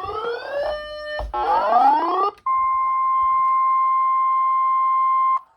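Electronic weather-radio alert tones: two rising, sweeping tones with a short steady chord between them, then a steady single-pitch attention tone for about three seconds that cuts off sharply. This is the NOAA Weather Radio warning alarm tone that signals a new tornado warning is about to be read.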